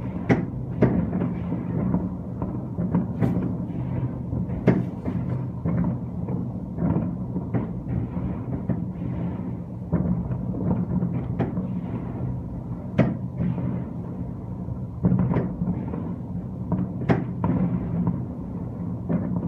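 Fireworks bursting, sharp bangs and pops at irregular intervals over a steady low drone.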